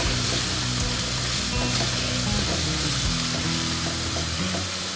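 Sliced onions sizzling in hot olive oil in a frying pan, stirred with a wooden spoon.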